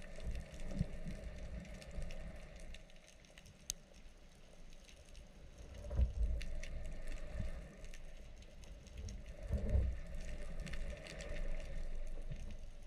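Underwater ambience: a low rumble of water moving past the camera, with scattered faint clicks and crackles, and two stronger low surges, about six and about ten seconds in.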